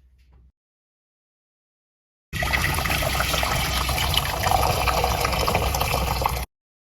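Water pouring steadily for about four seconds, starting suddenly about two seconds in and cutting off abruptly.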